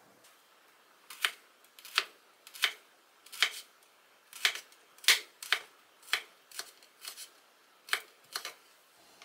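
Kitchen knife thinly slicing garlic cloves on a wooden cutting board: about a dozen sharp knocks of the blade against the board, spaced unevenly about half a second to a second apart, starting about a second in.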